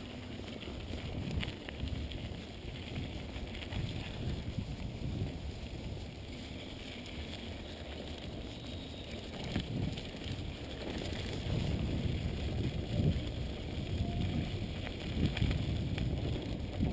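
Mountain bike rolling over a rough dirt trail: rumble of the tyres on the ground with scattered clicks and rattles from the bike, and wind buffeting the microphone.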